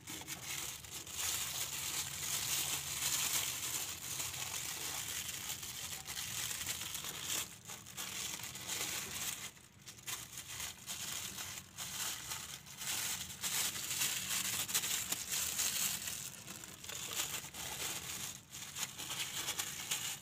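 Thin plastic sheet crinkling and rustling as hands wrap it around the engine's wiring and sensor connectors to keep water out before the engine is washed, with a few brief pauses.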